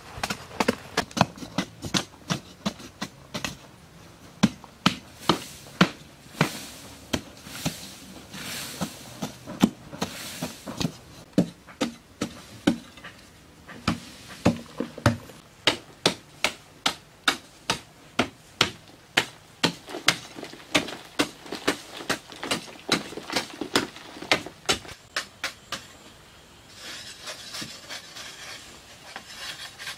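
A bladed hand tool chopping into hard-packed earth over and over, about one to two blows a second. Near the end the blows give way to a steady scraping rub on the carved earthen wall.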